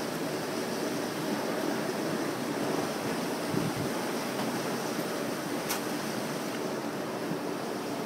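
Steady outdoor rushing noise, like wind on the microphone, with one sharp click a little past halfway.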